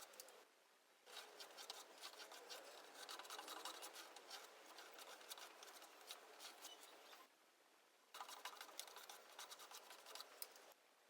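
Hand tool scratching over a wooden surface in quick rubbing strokes: a short bout at the start, a long one of about six seconds, then after a pause another of about two and a half seconds.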